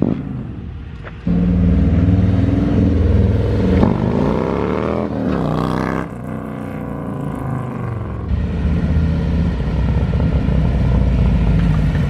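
Harley-Davidson bagger's Milwaukee-Eight 117 V-twin running through a D&D 2-into-1 exhaust as the motorcycle is ridden down the street. It opens up about a second in, with rising revs as it accelerates around four to five seconds in, then runs steadily as it rides by.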